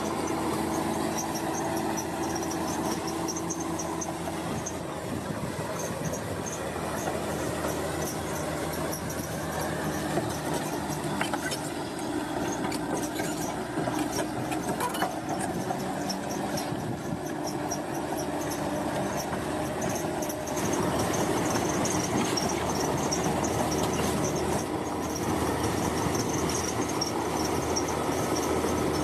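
Komatsu bulldozer's diesel engine running under load, its steel tracks squealing and clanking as it pushes earth. The engine gets louder about two-thirds of the way through.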